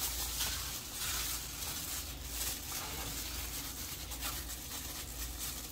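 Soft rustling and light scraping from a plastic food glove handling a bowl of chopped onion on a wooden cutting board, over a steady low hum.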